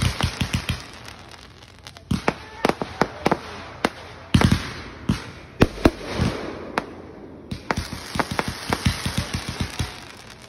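Aerial fireworks in a finale barrage: volleys of sharp bangs from shells launching and bursting, several a second, in clusters with brief lulls between them.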